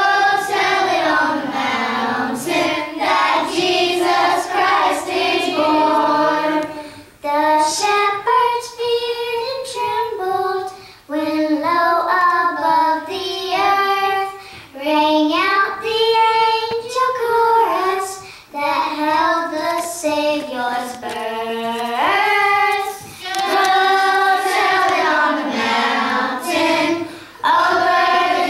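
Children singing a slow song, line by line, with short breaks for breath between phrases.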